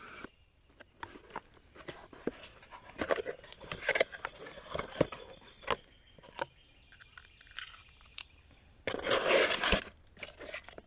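A small cardboard box being opened and a mug unpacked from it: scattered clicks, taps and scrapes of handling, with a louder rustle of about a second near the end.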